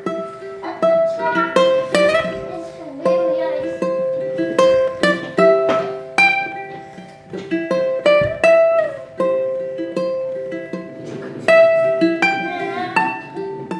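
Solo ukulele playing, plucked notes and chords struck one after another and left to ring.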